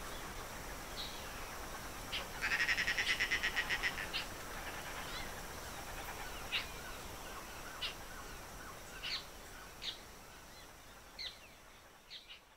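Outdoor ambience with birds calling over a steady hiss: a rapid pulsed call of about nine notes a second lasting about a second and a half, then short single chirps every second or so. The sound fades out near the end.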